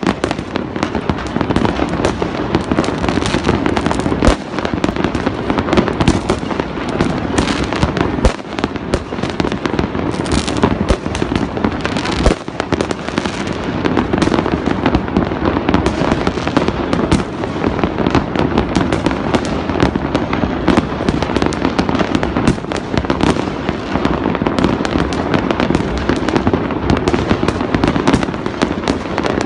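Fireworks exploding all across a city at once: a continuous, dense barrage of overlapping bangs, pops and crackles that never pauses.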